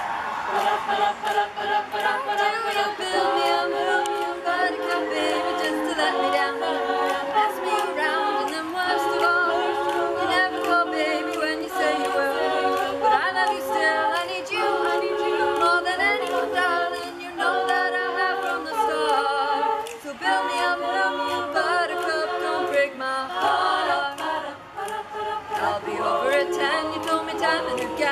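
A cappella vocal group singing a song in several-part harmony, voices holding and shifting chords together.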